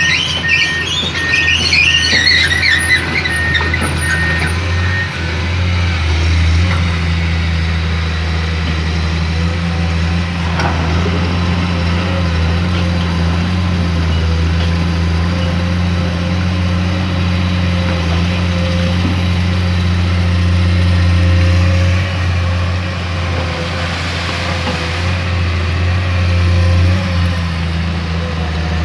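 Diesel engine of a Komatsu PC210 excavator running steadily as the machine works, a continuous low hum. High chirping sounds come and go in the first few seconds.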